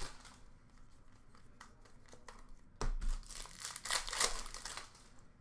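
Foil wrapper of a hockey card pack crinkling and tearing as it is opened by hand, about three seconds in and lasting a second and a half, with a few light clicks of card handling before it.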